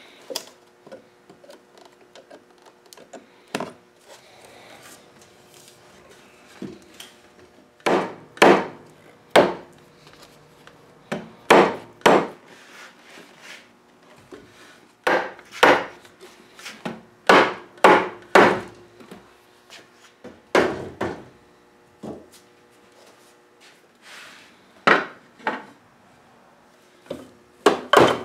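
Hammer blows on the wooden frame of a teak Hans Wegner W2 chair, knocking at its glued joints to work them loose so the chair can be taken apart and re-glued. The sharp knocks come in short runs of two or three, with pauses of a second or more between them.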